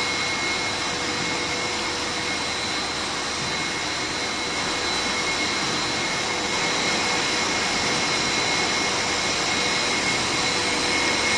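Core-filled snack extruder line running: a steady mechanical rush of motors and machinery with several constant high-pitched whines over it.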